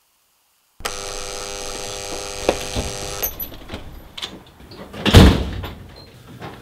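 Electric door buzzer sounding in one steady buzz of about two and a half seconds that cuts off abruptly, rousing someone who was asleep. About two seconds later comes a loud thump at the door.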